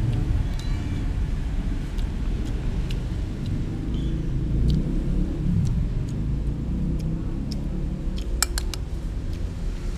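A low, steady rumble throughout, with light clicks of a metal spoon against a plate as rice is scooped, a quick cluster of sharper clinks about eight and a half seconds in.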